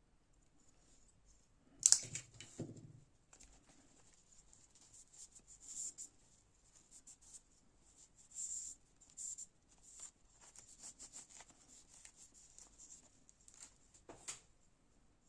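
Hands handling packaging or a knife: a sharp click and knock about two seconds in, then scratchy rustling and tearing noises, and another knock near the end.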